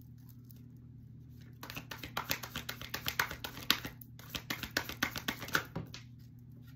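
A tarot deck being shuffled by hand: a quick run of card flicks and taps starting about a second and a half in and stopping near the end, with a brief pause in the middle, over a steady low hum.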